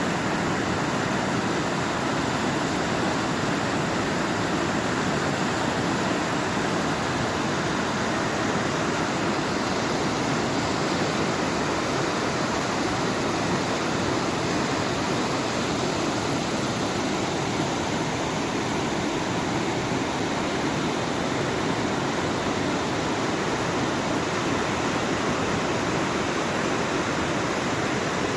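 Steady rushing of flowing water, an even unbroken noise with no distinct splashes or changes.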